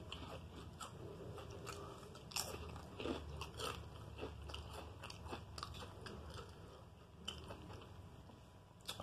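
A person chewing a mouthful of soggy homemade Italian beef sandwich close to the microphone, with irregular small clicks and bites.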